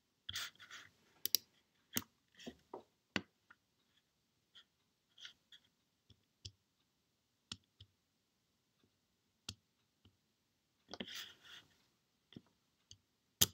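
Faint, irregular computer mouse clicks, some single and some in short quick clusters, as a web page is scrolled and a link clicked.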